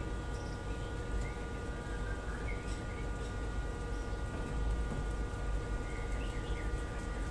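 A group of rabbits chewing leafy greens: a steady, dense crackle of many small munching bites, with a steady hum underneath and a few faint high chirps.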